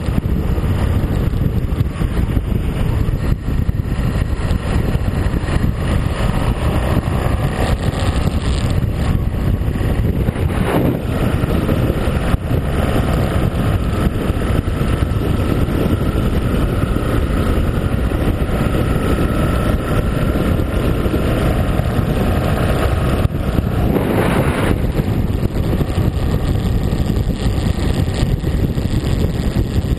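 Steady wind rush buffeting the microphone of a camera on a motorcycle cruising at highway speed, over the bike's engine and tyre noise.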